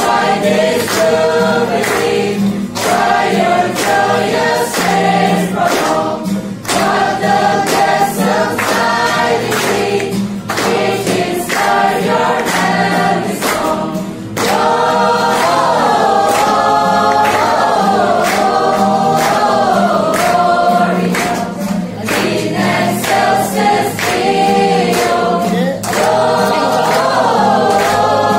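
Small choir of mostly female voices singing a Christmas song, with an acoustic guitar strummed along underneath.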